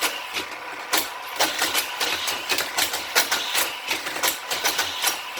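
Battery-powered motorized boosters of a Hot Wheels Corkscrew Crash track set whirring steadily, with die-cast toy cars clattering through the plastic track in rapid, irregular clicks.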